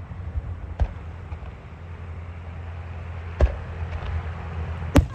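Consumer fireworks going off: three sharp bangs, about a second in, midway, and a louder one near the end, over a steady low rumble.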